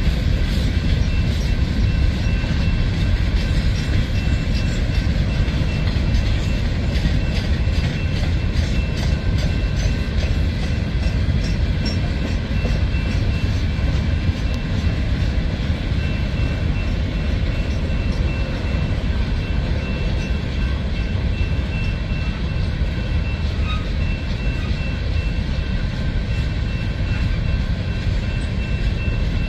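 A CSX freight train of open hopper cars rolling steadily past, with a deep rumble of wheels on rail. Wheels click over rail joints in an even rhythm through the first dozen seconds, then the rumble carries on more smoothly.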